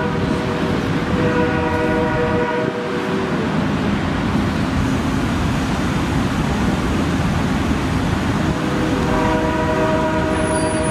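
Amtrak passenger train with P42DC locomotives passing close by, its cars rolling over the rails with a steady rumble. The locomotive's horn sounds ahead of the cars: a blast ending just after the start, another of about two seconds from about a second in, and a long one starting near the end.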